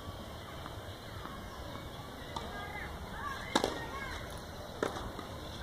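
Tennis racket strings hitting the ball in a rally: two sharp hits a little over a second apart, starting a little past halfway, the first the louder.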